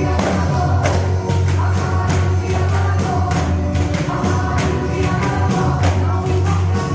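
Pandeiro, a jingled hand tambourine, shaken and struck in time with gospel music, its jingles crashing in a quick, even beat over a heavy bass line.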